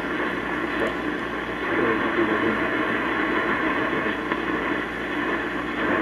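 1937 Philco 37-610 tube radio hissing with AM static while its dial is tuned, a weak distant station faintly heard under the noise.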